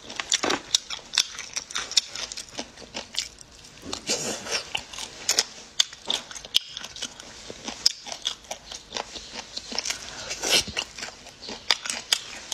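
Close-miked chewing and mouth smacking of a person eating sauce-coated food: a dense run of sharp, irregular clicks.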